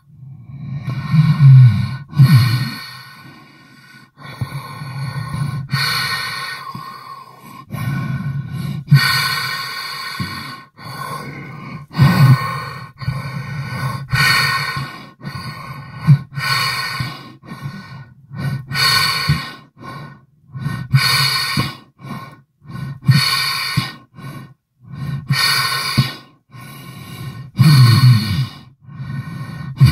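Abstract, processed sound-design textures meant as underwater, below-ground sounds: irregular swells about a second or two long, each with a low hum beneath, chopped off abruptly one after another.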